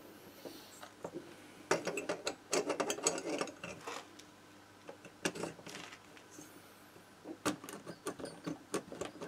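Light metallic clicks and knocks as a finned cylinder is worked down its studs over the piston of a Motobécane AV89 two-stroke moped engine, with the new piston rings squeezed in by hand. The clicks come in short clusters, about two seconds in, again around five seconds, and near the end.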